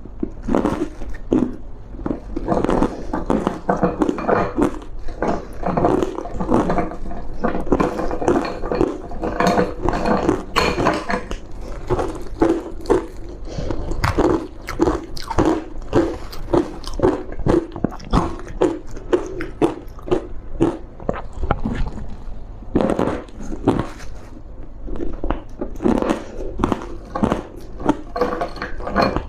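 Close-miked biting and chewing of refrozen matcha powder ice: rapid, continuous crunching of thin ice, many crisp crunches a second.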